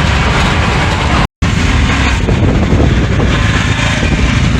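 Loud, steady rumble of a moving vehicle, with a brief complete drop-out about a second in.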